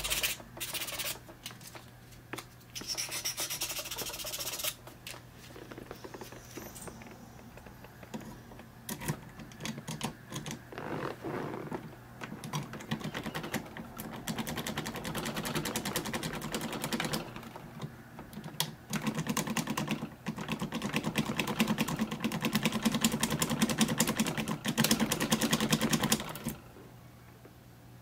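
Brass key blank in an impressioning handle being rocked and twisted in the keyway of a Master Lock No. 77 padlock: fast runs of small metal clicks and rattles in two long stretches, as the pins are made to mark the blank.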